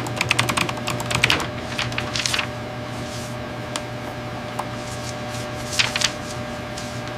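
A machine running with a steady hum, with runs of rapid mechanical clicking over it in the first couple of seconds and again briefly near the end.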